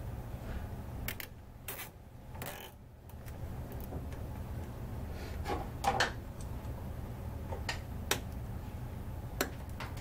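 Nylon zip tie being pulled tight around a cable bundle on a metal frame tube: a few short ratcheting zips and clicks, over a steady low hum.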